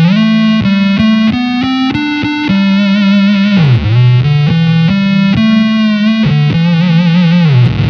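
Electric guitar through an EarthQuaker Devices Data Corrupter PLL synth pedal with its subharmonic oscillator engaged, playing a single-note lead as a buzzy monophonic synth tone that tracks the guitar closely. A run of quick note changes, wobbling vibrato on held notes, and pitch slides down about halfway through and near the end.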